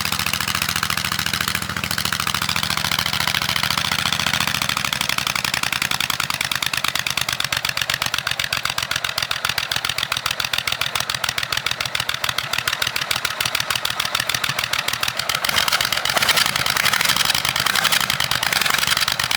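Suzuki Intruder VL 1500's V-twin engine running at idle through a Falcon Double Groove aftermarket exhaust, with a steady pulsing beat that gets a little louder about sixteen seconds in.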